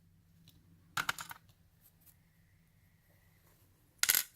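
Small lock pins clattering as they are tipped out into a pin tray: a short burst of light clicks about a second in and a louder burst near the end.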